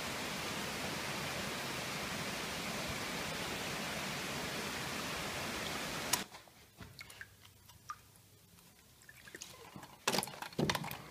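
Steady rush of a mountain stream, which cuts off about six seconds in to a quiet room: water splashing and dripping as a brown trout is lifted out of a cooler, small handling clicks, then a couple of sharp knocks near the end as the fish is hung on a scale's hook.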